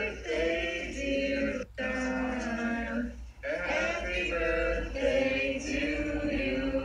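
Voices singing without instruments, in sung phrases broken by two short pauses.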